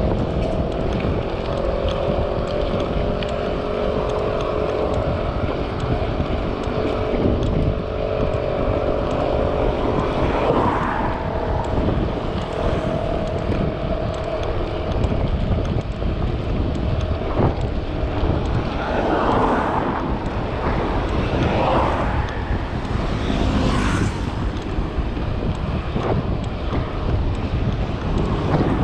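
Wind buffeting the microphone while riding a bicycle. A steady hum of several tones runs through the first half, and a few short hissing swells come in the second half.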